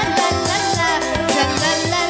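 Music with a steady drum beat and a gliding melody line.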